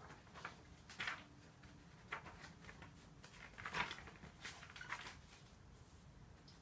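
Faint, irregular clicks and rustles of handling in a small workshop, about half a dozen of them, the loudest a little under four seconds in, over a low steady hum.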